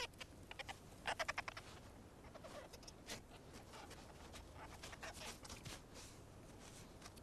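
Faint crunching of crusted snow as a coyote pounces and digs into it with its snout and paws: a quick run of crunches about a second in, then scattered ones.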